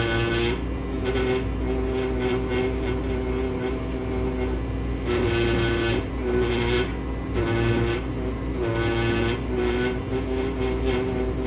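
Pneumatic air scribe buzzing as it chips rock matrix off a fossil turtle, its pitch dipping each time the tip is pressed into the stone and rising again as it lifts. A steady low hum from a dust vacuum runs underneath.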